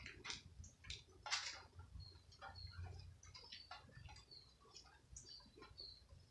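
Faint scattered ticks and taps of raindrops, with brief high chirps now and then.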